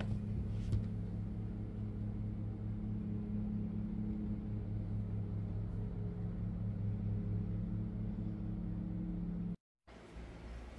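A steady low machine hum with a constant pitch, cutting off abruptly near the end.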